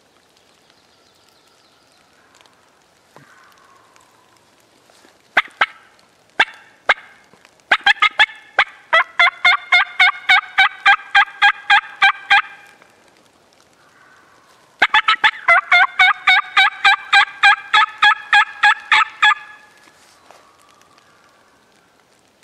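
Turkey mouth call worked close by as hen talk: a few sharp single clucks, then two long runs of rapid, evenly spaced hen yelps, about five seconds each, to call in gobbling toms.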